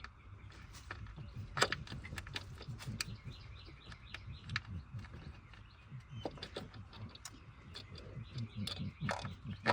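Scattered sharp clicks and light taps of an ignition coil pack, its bolts and the wiring being handled and set in place in an engine bay, over a steady low hum.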